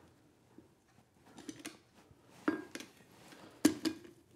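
A few light metallic clinks and taps of blacksmith's tongs and hot steel bar against the anvil: a handful of small ones after about a second, then two sharper clinks, the last one near the end being the loudest.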